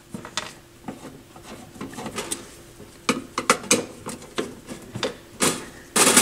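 Irregular small clicks and metallic clinks of screws being taken out of a TEAC 4010S reel-to-reel deck's cover panel and the panel being handled, with two louder clatters near the end.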